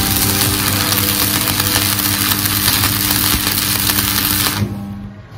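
Electric arc welding on thick steel tube: a steady welding-arc hiss that stops about four and a half seconds in.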